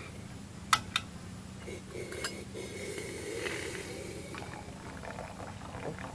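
Stainless-steel kettle handled on a portable gas stove, with two sharp metal clinks about a second in and another a second later, then hot water poured from it into a metal camping cup near the end.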